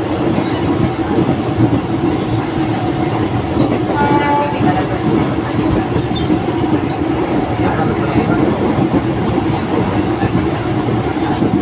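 Mumbai suburban electric local train running at speed, a loud steady rumble of wheels on rails heard from the open doorway. A brief higher tone sounds about four seconds in.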